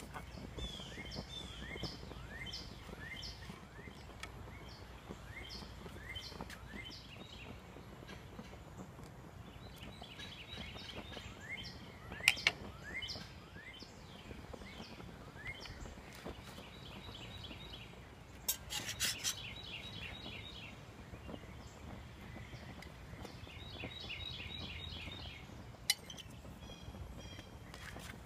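Songbirds singing repeated short chirps and quick trills, with utensils clinking on a plate: a double clink about twelve seconds in and a quick run of clinks about nineteen seconds in.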